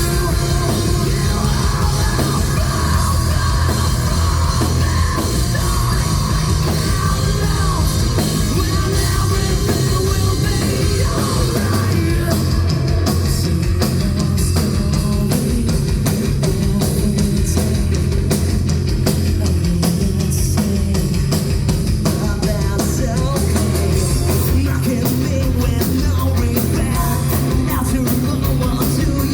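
Alternative metal band playing live and loud: heavy rock with drum kit and a thick, heavy bass end. The drumming turns denser about twelve seconds in.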